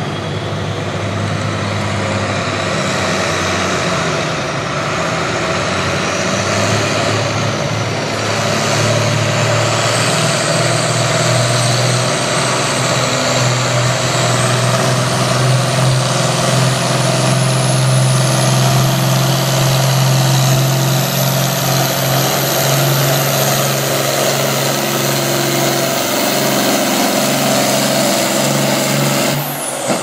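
International Harvester farm tractor's diesel engine running hard under full load while it drags a weight-transfer pulling sled: a loud, steady, deep engine note with a thin high whine that climbs steadily through the pull.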